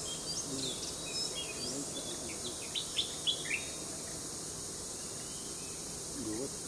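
Tawny-bellied babblers calling: a quick flurry of short, high chirps in the first few seconds that then dies away, over a steady high hiss.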